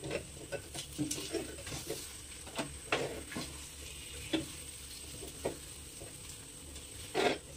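Spatula stirring and scraping thick besan barfi mixture cooking in ghee in a steel kadai: irregular scrapes and knocks against the pan.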